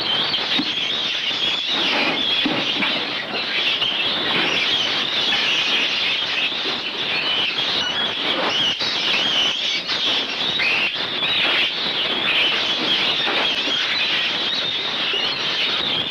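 Many caged mink squealing and chattering at once, a continuous high-pitched din of overlapping calls.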